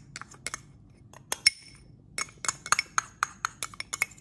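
Metal spoon clinking and scraping against glass as tapioca flour is scooped from a small glass cup and tapped into a glass bowl of pearl sago. A few scattered clinks at first, one ringing briefly about a second and a half in, then a quick run of taps from about two seconds in.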